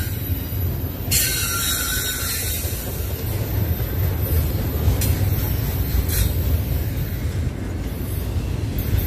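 Double-stack intermodal container train rolling past at close range: a steady rumble of steel wheels and well cars on the rails. High-pitched wheel squeal cuts in about a second in for a second or two, and again briefly about six seconds in.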